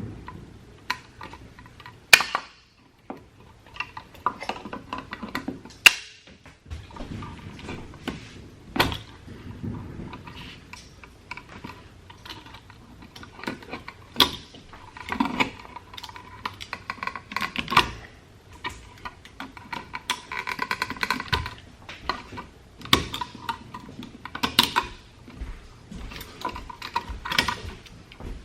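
Hand tools working electrical wire at a wall switch box: wire snips cutting the old switch's wires, with two sharp loud clicks about 2 and 6 seconds in, then many small clicks and rustles of handling wire and tools.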